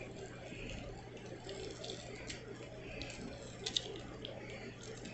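Faint handling noise of a Matchbox die-cast toy pickup truck turned over in the fingers, with a few small clicks, the sharpest about three and a half seconds in, over a low steady hum.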